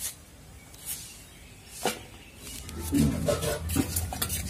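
Raw green mango being cut on a boti blade, with the pieces dropped into a steel bowl: single sharp clicks about once a second, then quicker clicking and handling in the second half.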